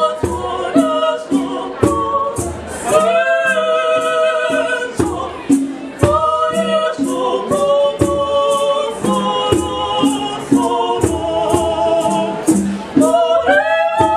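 Youth choir of mixed voices singing a church song in parts, with some long held chords, over a steady beat of short, sharp strikes.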